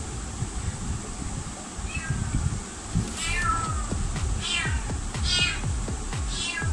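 Domestic cat meowing repeatedly: one short meow about two seconds in, then four longer meows about a second apart, the first of these the longest.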